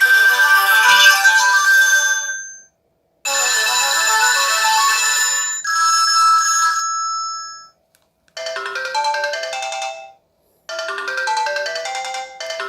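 Sony Ericsson K200a mobile phone ringtones playing: short electronic melodies of a couple of seconds each, cut off by brief silences and followed by the next one.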